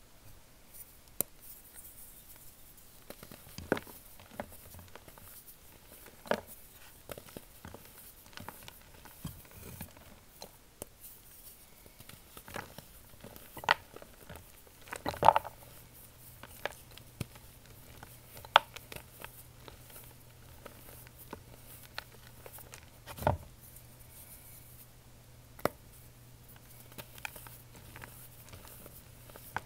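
Reformed chalk being crumbled and crushed by hand, with irregular sharp snaps and crunches of breaking chalk over a soft powdery rustle. A faint low hum comes in about halfway.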